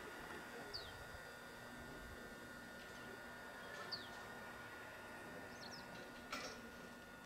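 Faint steady hum with two thin high tones over it, broken by two short falling bird chirps, about a second in and about four seconds in, and one brief knock near the end.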